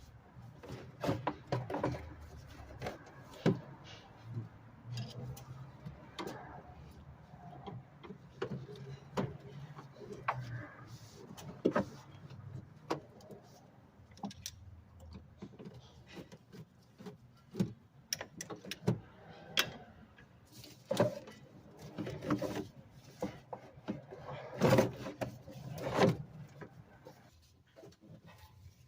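Irregular clicks, knocks and rattles of hand tools and parts being handled during work in a car's engine bay, with the sharpest knocks near the end.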